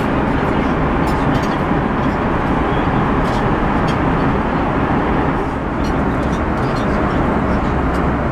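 Steady cabin noise inside an Airbus A340-300 in cruise flight: the even rush of airflow and engines. A few faint light clicks come through it.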